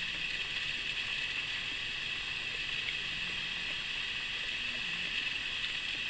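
Steady hiss of background noise at an even level, with no distinct event.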